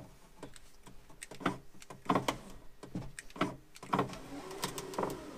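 BMW E39 rear power window regulator running and lowering the glass, with irregular sharp clicks and knocks throughout, the sound of the worn regulator that is being replaced.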